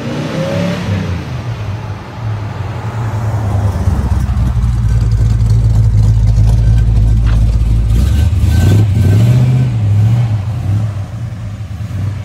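1970 Dodge Super Bee's 440 V8 rumbling loudly as the car drives by at low speed. The engine note rises briefly about nine seconds in.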